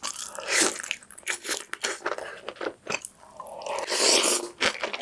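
Close-miked eating sounds of braised kimchi and Spam: biting and crunchy, wet chewing with many sharp mouth clicks. A longer wet slurp comes about four seconds in as kimchi is drawn into the mouth.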